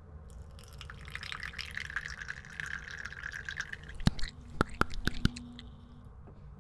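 Tea poured from a pink plastic jug into a cup: a steady splashing trickle for about three and a half seconds, then about five sharp clicks as the pouring stops.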